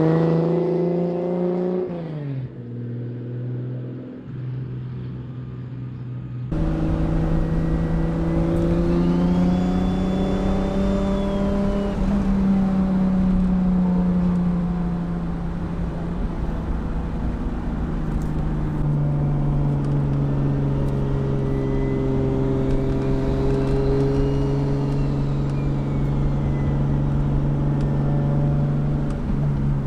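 Toyota Supra MKIV's turbocharged 2JZ straight-six heard through a 4-inch titanium Tomei Expreme Ti cat-back exhaust. It revs up and drops off in the first two seconds, then runs quieter. About six seconds in the sound jumps louder, and the engine runs steadily with its pitch slowly rising and falling, under a faint high whistle that rises and falls twice.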